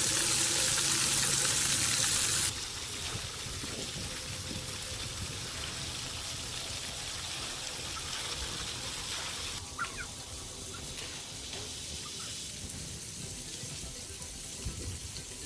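Splash pad water jets spraying: a loud, steady hiss of water that drops abruptly about two and a half seconds in to a quieter, continuous rush of water.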